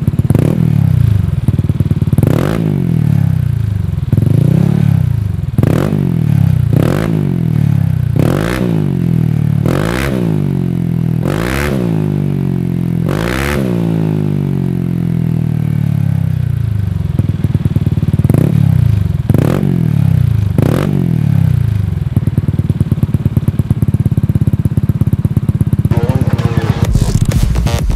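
Motorcycle engine through an aftermarket racing exhaust being revved in place: about ten quick throttle blips, each a rising and falling rev about every second and a half, then a steady idle broken by three more blips. Electronic music comes in near the end.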